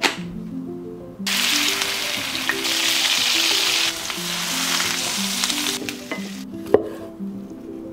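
Food sizzling in a hot frying pan, starting suddenly about a second in and stopping about six seconds in, over background music. A single sharp click near the end.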